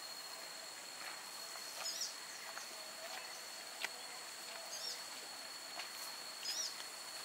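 Quiet rural outdoor ambience: a steady high-pitched insect whine, with a bird giving short chirps three times and a few light footstep clicks.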